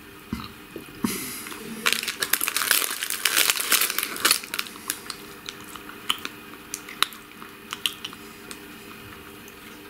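A dense run of crunching and crinkling for a couple of seconds, starting about two seconds in, then scattered small clicks.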